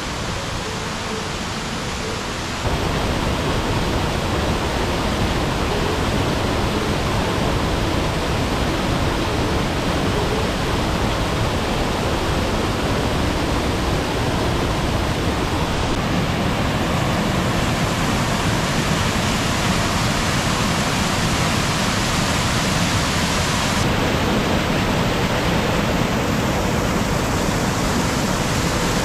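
Rocky mountain river rushing over boulders and small waterfalls, a steady sound of falling water that gets louder about three seconds in.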